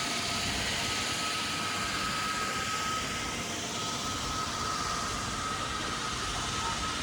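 Steady din of a busy city shopping street, with a constant thin whine running through it and no single event standing out.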